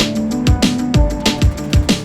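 Electronic background music with a steady, driving drum beat and deep bass thumps.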